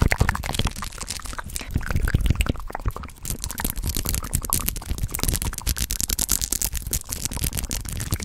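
Hands rubbing and tapping fast over a microphone's metal grille, close up: a dense, irregular run of quick crackling scratches and clicks.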